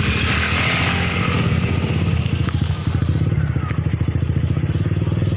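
An engine idling close by with a fast, even pulse, while a vehicle rushes past during the first two seconds.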